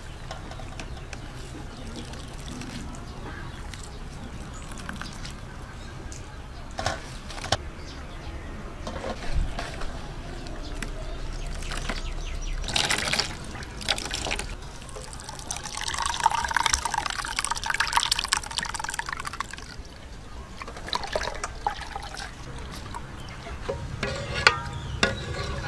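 Wet squelching and trickling of grated coconut being squeezed by hand with water in an aluminium bowl to press out coconut milk. It gets louder for a few seconds about two-thirds of the way through, with a few sharp clicks.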